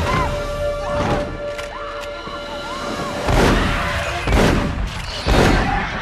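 Film action soundtrack: music with gliding tones, then three heavy crashing booms about a second apart in the second half.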